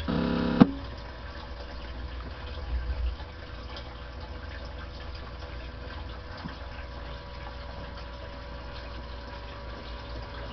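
CB radio receiving only static: a steady hiss with a constant electrical hum. It opens with a short, steady tone that ends in a sharp click about half a second in.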